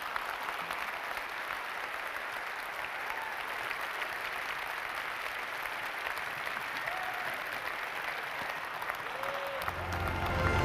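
Large audience applauding steadily, a dense even clatter of many hands clapping. Near the end, closing music comes in underneath and the level rises.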